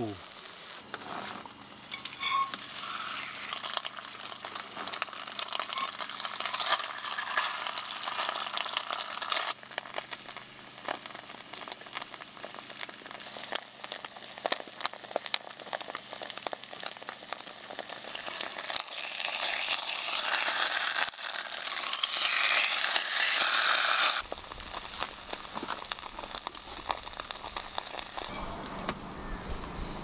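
Food sizzling and crackling as it fries in a pan, with a dense patter of small pops. It grows louder for a few seconds past the middle, then drops suddenly about three-quarters of the way through.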